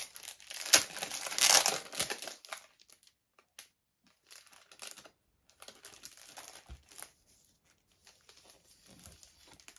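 Rustling and crinkling of A4 vinyl sticker sheets being slid out of their packaging by hand, busiest in the first two seconds, then only faint, scattered rustles.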